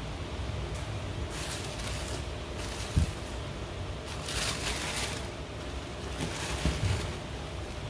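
Tissue paper in a cardboard shoebox rustling and crinkling in several bursts as it is pulled open, with a dull thump about three seconds in, over a steady low rumble.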